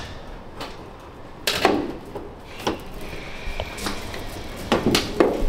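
Irregular knocks and scrapes as a heavy steel-wire-armoured (SWA) cable is pulled and handled against the wall-mounted tray and pipework, with one louder knock about a second and a half in and a run of them near the end.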